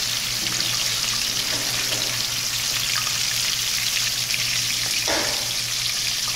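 A whole fish frying in hot oil in a pan: a steady, dense sizzle and crackle of bubbling oil.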